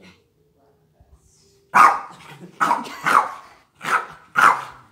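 Small dog barking: five sharp, loud barks in quick succession beginning a little under two seconds in, excited barks at a toy being waved over her.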